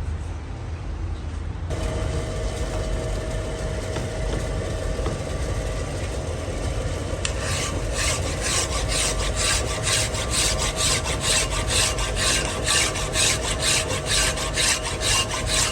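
A machine's motor hums steadily from about two seconds in. About halfway through, rhythmic rasping strokes of a hand file on metal start over it, about three strokes a second, which fits filing a shaft turning in a lathe.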